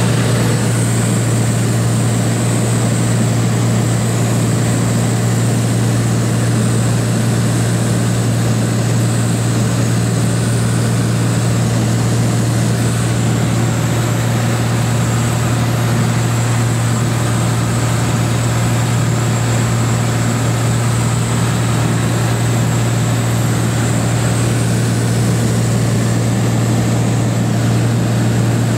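Steady drone of a 2003 Columbia 350's six-cylinder piston engine and propeller in flight, heard inside the cabin. It is a constant low hum at an unchanging pitch, with a hiss of air above it.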